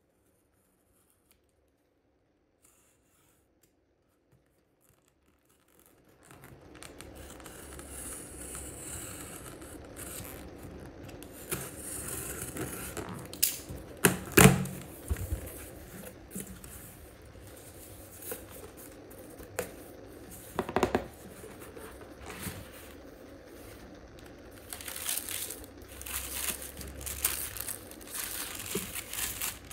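Near silence for about six seconds, then packing tape on a cardboard shipping box being slit with a utility knife and torn open, with a few loud rips around the middle. Near the end, tissue paper crinkles as it is unfolded from around the shoes in the box.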